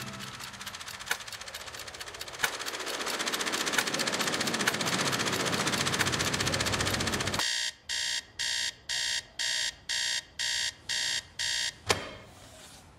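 Flip-card alarm clock with its cards flapping over very fast in a dense clattering whir. Then the alarm beeps, about nine beeps at two a second. The beeping is cut off by a sharp click as a hand slaps down on top of the clock.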